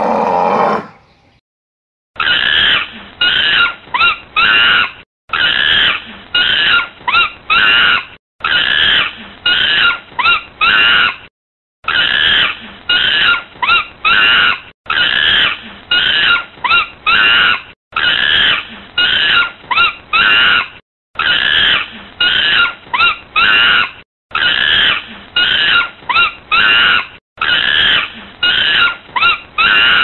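A short run of high-pitched animal calls, four or five in quick succession, repeated as a loop about every three seconds after a brief loud burst at the very start.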